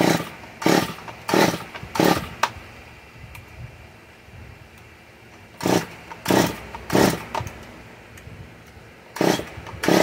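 Stihl MS 194 T two-stroke top-handle chainsaw being pull-started: three runs of quick cord pulls, four, then three, then two, each a short burst of the engine turning over without starting. The engine is flooded with gasoline poured straight into it.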